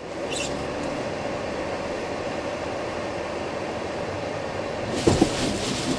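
A car driving at about 40 km/h on a wet track, heard from inside: steady engine and tyre noise, with a short thump about five seconds in as it reaches the skid plate.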